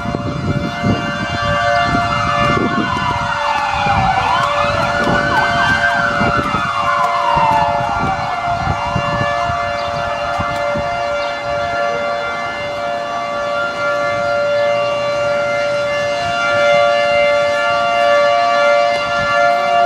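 Outdoor tornado warning sirens sounding: a steady two-tone siren throughout, and a second siren wailing slowly up and down for about the first nine seconds. Gusts of wind buffet the microphone in the first few seconds.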